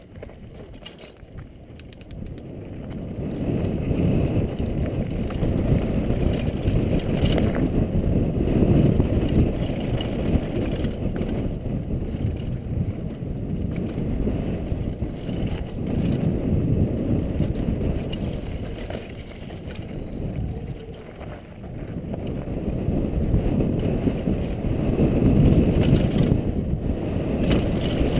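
Downhill mountain bike ridden fast down a dusty dirt and gravel trail: a low rumble of knobby tyres and rattling bike, mixed with wind rushing over the helmet-mounted camera. It builds a couple of seconds in and eases briefly about three-quarters through.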